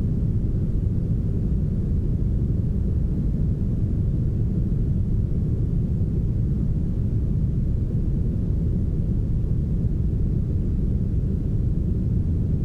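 Smoothed brown noise: a steady, deep hiss with its weight in the low end and very little treble, unchanging throughout.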